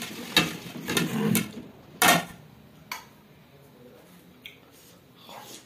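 Ceramic plates knocking and clinking as they are moved and stacked on a tabletop: a handful of separate sharp knocks, the loudest about two seconds in.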